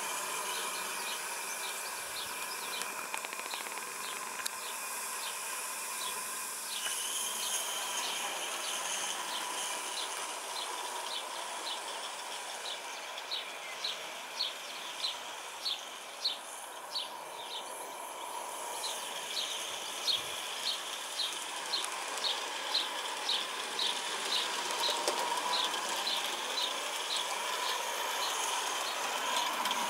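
Live-steam garden-railway model of a Darjeeling B Class locomotive running at speed with its train of coaches, giving a regular clicking about two a second over a soft steady hiss.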